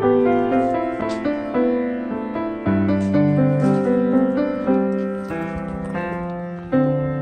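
Background piano music: a slow, gentle melody of single notes over held low chords.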